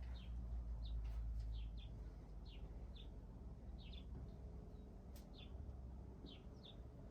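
A small bird chirping repeatedly, about ten short falling chirps at irregular spacing, over a steady low rumble. Two sharp clicks sound, about one second and five seconds in.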